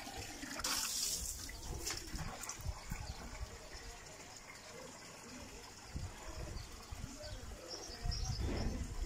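Water running from a hose into a plastic bucket and then into a plastic drum, splashing loudest about a second in.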